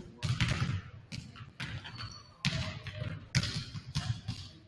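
Several basketballs bouncing on a hardwood gym floor: irregular, overlapping thuds as players dribble and shoot.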